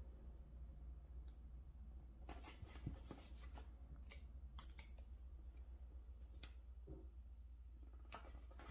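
Faint snips, crinkles and soft ticks of thin paper sticker strips being cut with scissors, peeled from their backing and pressed onto a planner page, coming as scattered short sounds.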